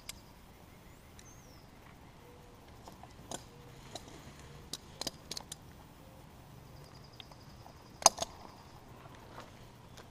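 Scattered light knocks and snaps at irregular intervals, the loudest about eight seconds in. A faint, fast-pulsing high trill is heard briefly near the start and again around seven to nine seconds.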